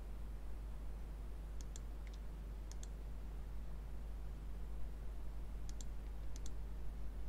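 Computer mouse button clicking: four quick press-and-release double ticks and one fainter tick, over a steady low hum.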